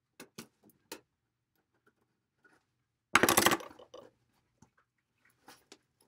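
Someone working at a small box with a knife that is not cutting it. A few light clicks and taps in the first second and again near the end, and one loud, rattling half-second burst about three seconds in.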